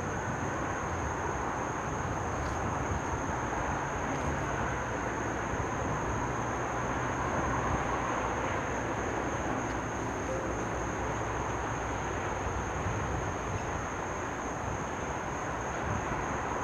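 GE diesel locomotives led by a CW40-8 (Dash 8-40CW) approaching under power, a steady low engine drone. It grows slightly louder near the end as the train comes closer.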